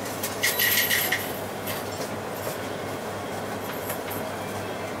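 Interior running sound of an Isuzu Erga QPG-LV234L3 city bus: a steady engine and road drone. A little under half a second in comes a brief, louder high-pitched squeal-and-hiss lasting under a second.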